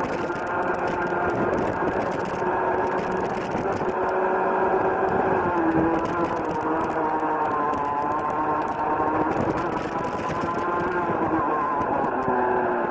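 Rotax Junior Max 125cc two-stroke kart engine running hard at racing speed. Its note eases down near the end as the kart slows for a corner.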